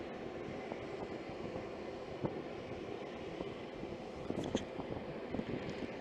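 Steady drone of a running aircraft turbine on the ramp, with a few light knocks about four and a half seconds in.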